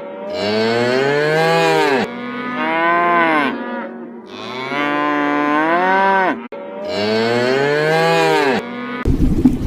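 Cattle mooing: four long, loud moos in a row, each dropping in pitch as it ends.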